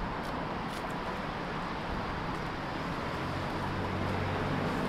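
City street traffic: a steady wash of passing vehicles, with a vehicle engine's low hum coming up from about three seconds in.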